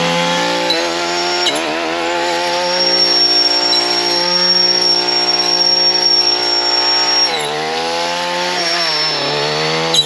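Two-stroke gas trimmer engine running at high revs, driving a saw blade through brush. The revs dip and pick back up twice, about a second and a half in and again past seven seconds. A thin high singing note from the spinning blade rings through the middle.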